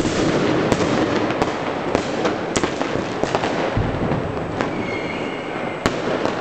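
Massed consumer fireworks and firecrackers going off across a city: a continuous crackle and rumble of many distant bangs, with sharper single bangs every second or so, the loudest about six seconds in.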